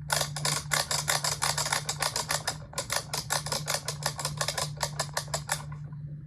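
A toy zord giving a rapid run of sharp clicks, about six a second, with a short break partway through, stopping about a second before the end, over a steady low hum.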